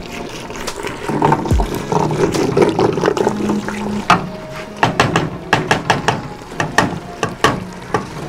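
Wooden madhani (hand churner) twirled through a pot of cooked spinach, mashing it smooth: wet sloshing and squelching with irregular clacks of the wood against the pot.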